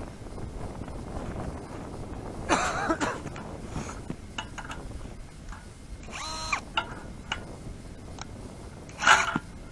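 Ice-fishing gear being handled on the ice: three short scraping, squeaking sounds, the loudest near the end.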